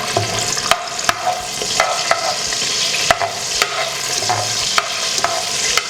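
Bay leaves frying in hot oil in a pressure cooker: a steady sizzle, with a spatula clicking against the pot every half second or so as they are stirred.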